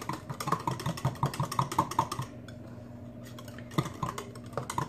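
A metal fork whisking milk and gravy mix inside an opened tin soup can: quick, even clinks of the tines against the can at about six a second. The whisking stops for about a second and a half midway, then starts again.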